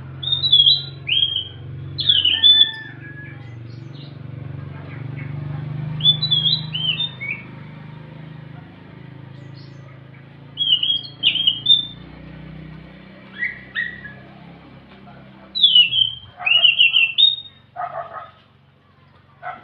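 Caged anis macan thrush singing: short loud phrases of clear whistled notes that slide and fall, coming every few seconds, with a rougher, harsher burst of notes near the end.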